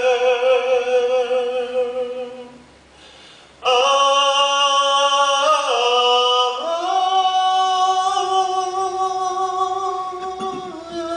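A single voice singing slow, long-held notes with vibrato, breaking off for about a second around three seconds in before carrying on.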